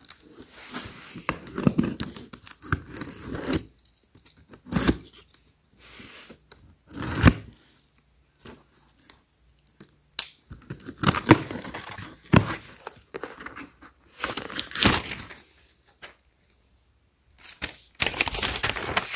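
Pocket knife blade slitting the packing tape and cardboard of a shipping box in short, separate tearing strokes with pauses between. Near the end comes a longer, louder stretch as the cardboard flap is pulled open.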